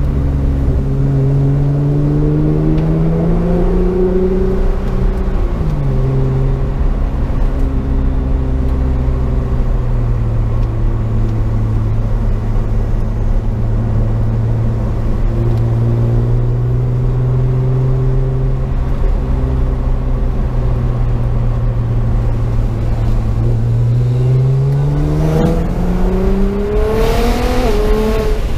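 Nissan GT-R's twin-turbo V6 heard from inside the cabin. The revs climb, then drop sharply about five seconds in, hold steady for a long stretch, and rise again under acceleration near the end, with a brief rush of noise shortly before the end.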